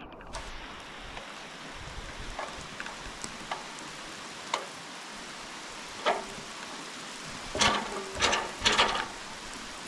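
Steady rain falling and pattering on surfaces. A few knocks and clatters sound over it: single ones about halfway through, then a louder cluster of three near the end.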